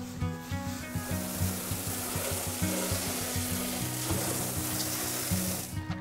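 Background music with a steady beat. Over it, an even rushing, rubbing noise starts about a second in and cuts off abruptly just before the end.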